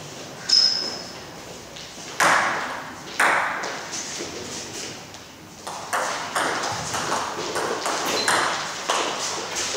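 Table tennis doubles rally: a celluloid ball clicking off the table and the rubber bats. A sharp ping comes shortly after the start and two louder knocks about two and three seconds in, then a steady exchange of hits from about six seconds in, about two to three a second.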